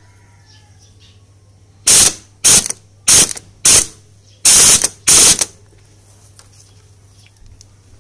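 Ratchet wrench clicking in six short strokes over about three and a half seconds as it tightens the camshaft sprocket bolt on a Yamaha LC135 engine.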